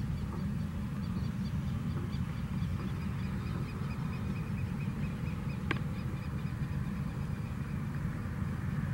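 Boeing 737-700's CFM56-7B jet engines at taxi idle, a steady low rumble heard across the airfield. Faint high chirping repeats a few times a second above it, and there is a single short click a little past halfway.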